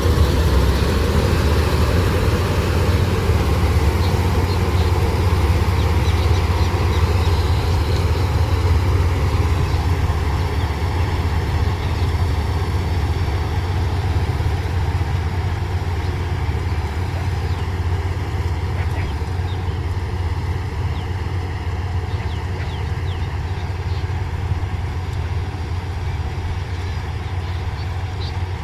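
Heavy farm diesel engine running steadily, growing slightly quieter toward the end.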